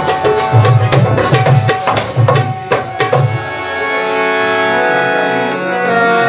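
Tabla playing a quick rhythm of sharp strokes and deep bass booms over harmonium chords. About three and a half seconds in, the tabla stops and the harmonium keeps playing alone with sustained reedy chords.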